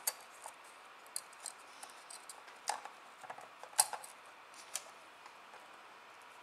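Small, sharp, irregular clicks and taps of plastic and metal parts as fingers handle a Canon Vixia HG20 camcorder's LCD panel in its flip-out screen housing, the loudest just under four seconds in.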